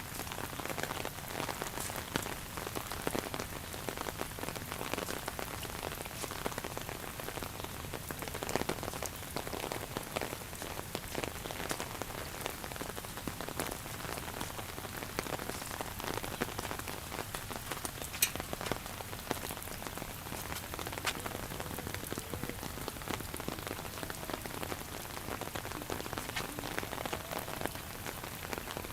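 Steady rain falling, with many scattered drops tapping close by and one sharper tap about 18 seconds in.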